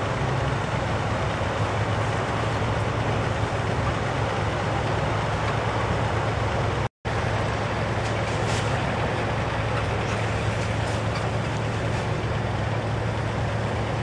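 An engine idling steadily: a constant low hum with an even hiss over it. The sound drops out completely for a split second about seven seconds in, then carries on unchanged.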